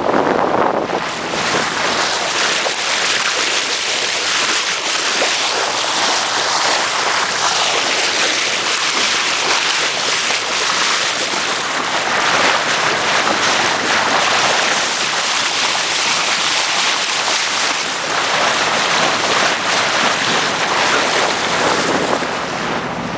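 Wind buffeting the microphone over the rush and splash of water past the hull of a small boat under way at sea, a loud, unsteady hiss throughout.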